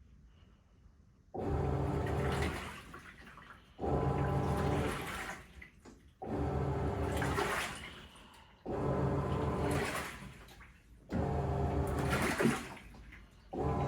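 Teco 10 kg top-loader washing machine agitating: its motor drives the pulsator-and-agitator in six strokes about every two and a half seconds, each a short run of motor hum with water sloshing, then a pause. This is the pre-drain agitate, which turns the load over to spread it evenly before draining.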